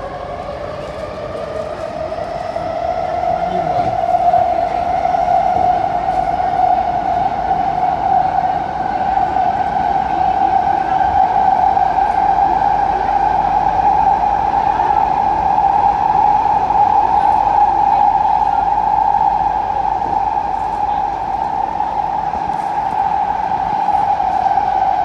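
Kawasaki-Sifang C151B metro train's electric traction motors whining, heard inside the carriage. The whine climbs in pitch over the first several seconds as the train gathers speed, then holds steady over the rumble of the wheels on the track.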